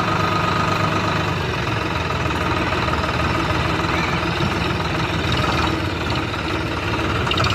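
Diesel engine running steadily with an even low throb, from the excavator or tractor working the sand.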